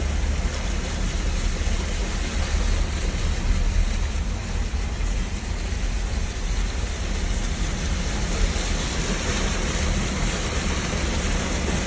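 Steady noise of a car on the move: a constant low rumble with a hiss over it.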